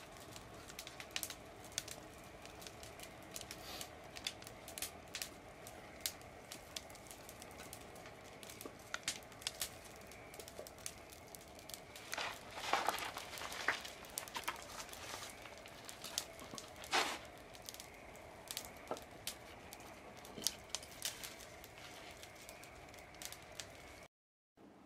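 Burning wood crackling and popping in a wood-fired train kiln's side stoking ports, with scattered sharp pops throughout. Louder rustling and scraping bursts come about halfway through and again a few seconds later, as thin wood slats are handled and fed in.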